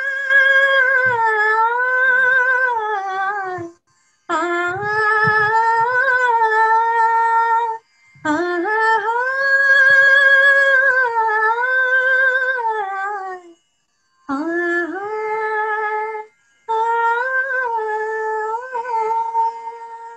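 A woman singing unaccompanied in Kannada light-classical style, drawing out long held notes with wavering, ornamented pitch in five phrases separated by short breaths. The last phrase trails away near the end, closing the song.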